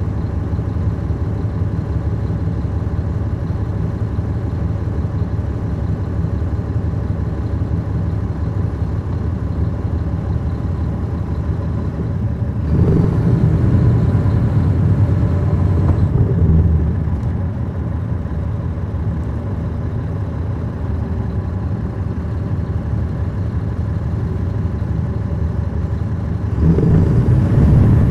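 Caterpillar C13 ACERT inline-six diesel of a 2009 NABI 40-foot transit bus, heard from the back of the cabin, running steadily. It gets louder about halfway through for a few seconds, and again near the end.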